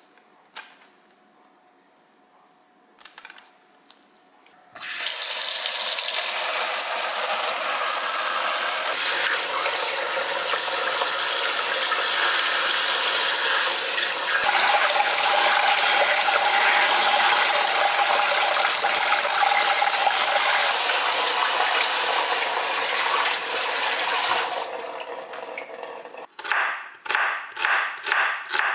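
Scissors snipping perilla leaf stems a few times, faint. Then tap water runs steadily into a bowl in a sink as the leaves are rinsed under it. Near the end, a kitchen knife slices an onion on a wooden cutting board in quick strokes, about three a second.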